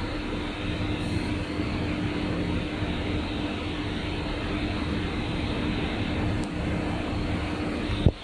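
Steady hum and rushing noise of running machinery, with a constant low drone. One sharp click near the end.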